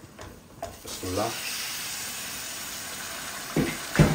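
Pieces of pre-cooked chicken breast tipped into a pot of hot oil and fried onions start sizzling about a second in, then sizzle steadily. Two sharp knocks come near the end.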